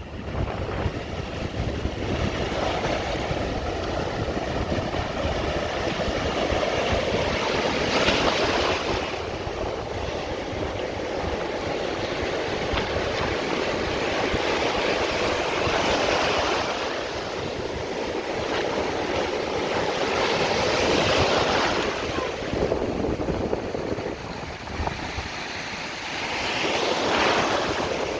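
Ocean surf: a steady wash of breaking waves, with four louder crashes several seconds apart. Wind buffets the microphone with a low rumble.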